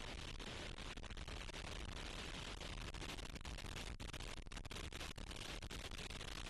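Very strong wind: a steady rushing noise with a heavy low rumble of wind buffeting the microphone, broken by many split-second dropouts.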